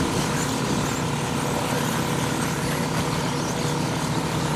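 Radio-controlled 2WD off-road buggies running on a race track, heard as a steady mechanical hum and whir with a faint high held tone.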